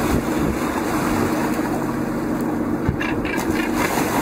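Fishing boat's engine running with a steady hum, under wind noise on the microphone, with water splashing about three seconds in as a hooked tuna thrashes at the surface.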